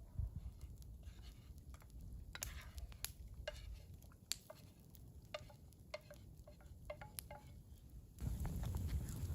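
Metal spoon clinking against a metal pot or cup, a run of short ringing clinks and taps. Near the end a louder steady low rushing noise sets in.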